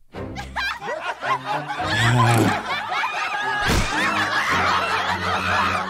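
Several cartoon voices breaking into loud, sustained laughter over background music.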